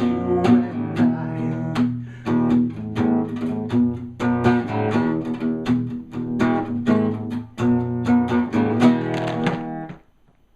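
Acoustic guitar strummed in steady chords, the song's closing instrumental bars, stopping abruptly near the end.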